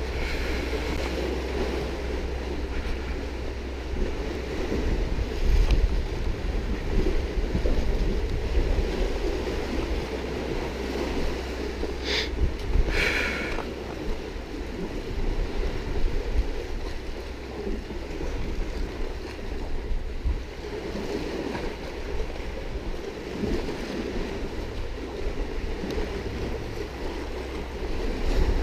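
Wind buffeting the microphone in a steady low rumble over the wash of sea waves on the rocks, with two short sharp knocks about halfway through.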